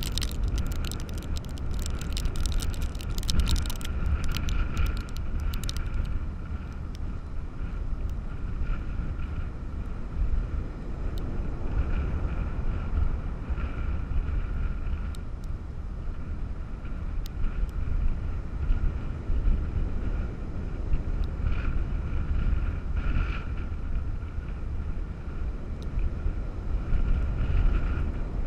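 Strong storm wind from Hurricane Hermine buffeting the microphone in gusts, over the noise of heavy surf. Sharp crackling ticks sound over the first several seconds.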